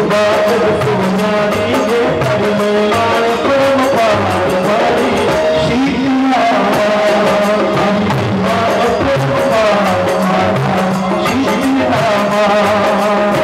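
A man singing a Hindi devotional song in praise of the Mother goddess into a microphone, live, with instrumental accompaniment and a drum beat.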